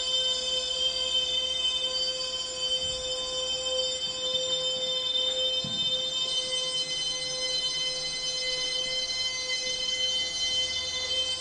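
A man's held, strained, high-pitched vocal noise forced out through a clenched grin, steady in pitch, from a video played back over loudspeakers.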